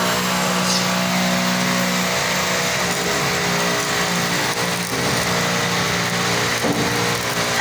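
Stick (shielded metal arc) welding on steel pipe: the arc crackles and buzzes steadily with a constant hum, striking up at the start and holding throughout.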